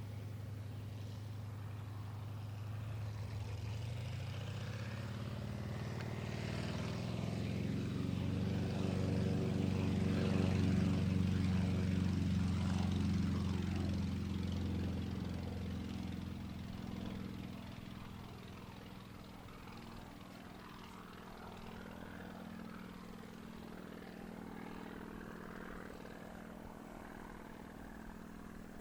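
Sukhoi Su-29's Vedeneyev M-14P nine-cylinder supercharged radial engine and propeller running. The steady engine note swells to its loudest about eleven seconds in, then fades and settles lower for the rest.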